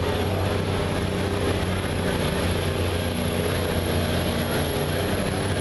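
Concrete mixer truck's diesel engine running hard under load, pulling a weighted sled down the pulling track, holding a steady pitch.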